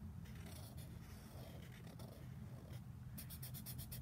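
Black felt-tip marker scratching on paper as it colours in a small solid dot, the cat's eye. Faint strokes at first, then a quick run of short back-and-forth strokes, several a second, over the last second.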